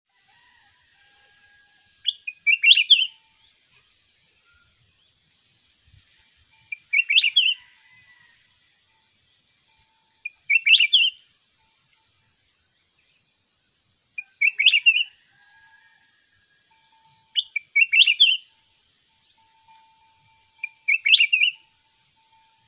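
Red-whiskered bulbul singing short, bright phrases of quick warbled notes: six phrases, about one every three and a half seconds. Faint thin whistles sound between the phrases.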